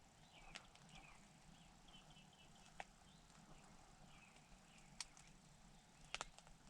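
Quiet woods with a songbird chirping faintly and a few scattered sharp ticks, the loudest a quick double tick about six seconds in.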